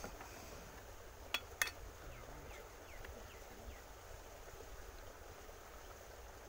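Quiet outdoor ambience with two sharp clicks a quarter second apart about a second and a half in, followed by a few faint, short, high chirps.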